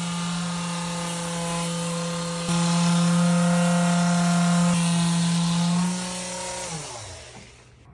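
Electric motor running with a steady hum. It gets louder about two and a half seconds in, with a click, then winds down with falling pitch and stops near the end.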